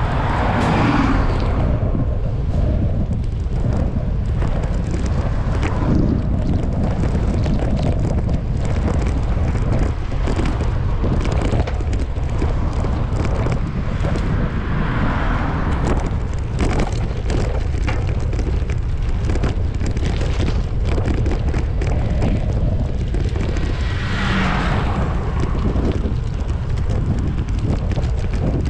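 Wind buffeting the microphone of a camera riding on a moving bicycle: a loud, steady rumble with crackles. Cars swish past three times: at the start, around the middle, and near the end.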